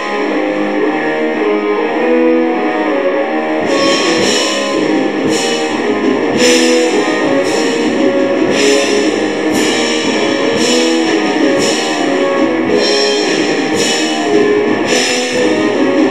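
Black metal music: a dense distorted electric guitar riff, joined from about four seconds in by sharp ringing hits that recur roughly once a second.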